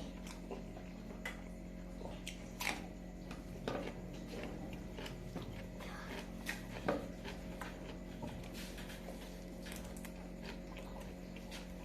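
A person chewing and biting chicken, with scattered soft wet mouth clicks and smacks, over a steady low electrical hum.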